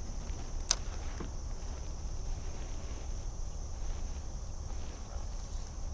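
A single sharp click a little under a second in, like a spinning reel's bail snapping shut after a cast, over a faint steady hiss and low rumble.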